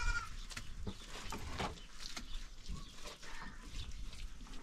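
A livestock bleat trails off just after the start, followed by scattered light knocks and clicks.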